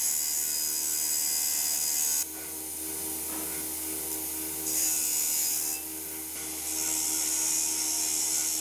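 Bench grinder's wire brush wheel scrubbing rust off a Honda CD motorcycle's front fork tube: a steady scrubbing hiss over the motor's hum. The hiss steps louder and softer as the tube is pressed on and eased off, dropping about two seconds in and swelling again around five seconds.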